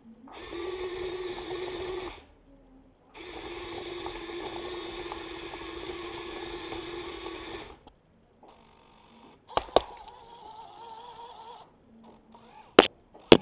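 Small electric motors of a 1:50 scale Kyosho Komatsu 1250 remote-control excavator model running with a steady whine, in two long runs with a short gap between, then a fainter, higher-pitched run. A few sharp clicks come near the end.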